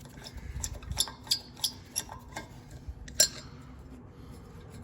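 Light metallic clicks and clinks of hand tools and brake hardware being handled, about half a dozen separate ones, the loudest just after three seconds in.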